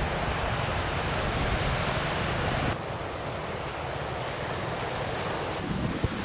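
Steady wash of sea waves on a rocky shore, mixed with wind on the microphone. About three seconds in it drops to a quieter, duller wind-and-sea background.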